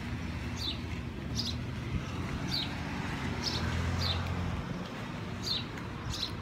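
A bird repeating a short, high, falling chirp about once a second, seven times, over a low steady rumble that stops about two-thirds of the way through.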